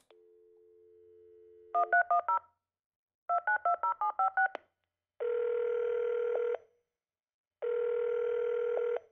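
Telephone call being placed: a steady dial tone, then a number keyed in two quick runs of touch-tone (DTMF) beeps, then the ringback tone ringing twice while the call connects.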